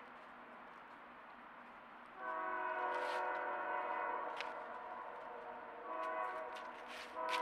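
Train horn sounding a long, steady chord about two seconds in, then a shorter blast and the start of another near the end, with a few light clicks over it.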